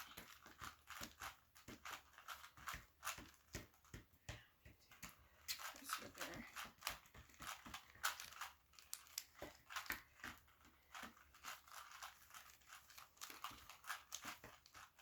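Faint, rapid plastic clicking and rattling of puzzle cubes, a Rubik's cube and a mirror cube, being twisted quickly, several clicks a second.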